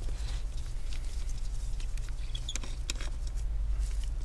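A few small plastic clicks and taps as a laptop cooling fan is handled and lifted out of its chassis, over a steady low electrical hum.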